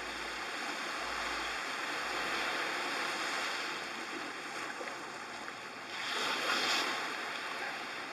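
Small waves washing onto a sandy shore: a steady surf hiss, with one wave swelling louder about six seconds in.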